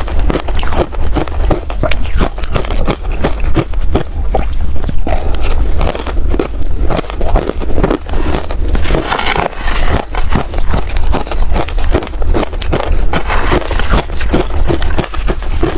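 Ice being bitten and chewed close to the microphone: a continuous run of loud, crackling crunches.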